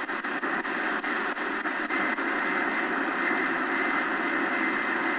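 XHDATA D-901 shortwave radio's speaker giving out a weird chirping sound on Vatican Radio's frequency: a steady hiss with faint quick ticks, a few a second, in the first couple of seconds. It seems to take over when the station stops transmitting or aims its antennas elsewhere.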